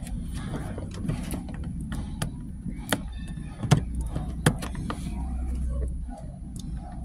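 Clicks and knocks of hands working plastic car interior trim while tucking dash cam wiring, with three sharper knocks in the middle, over a low steady rumble.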